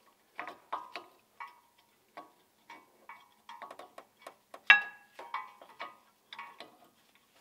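Brake pads' metal backing plates and clips clinking against a rear brake caliper as the pads are fitted: a string of irregular light metallic clicks and clinks, the loudest a little under five seconds in.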